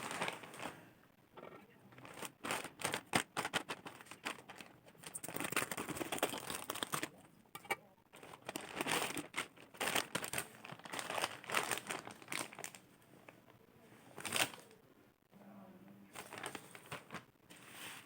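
Parcel packaging and bubble wrap being torn open and crinkled by hand, in irregular bursts of crackling with short pauses, and one louder rip about three-quarters of the way through.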